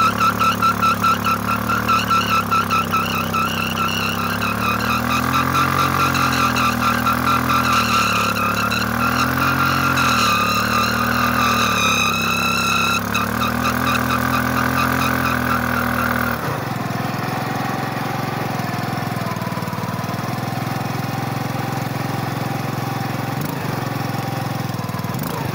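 Motorcycle burnout: the engine is held at high revs, rising and falling, while the spinning rear tyre squeaks against the ground. About two thirds of the way in the squeal stops suddenly and the engine drops back to a steady idle.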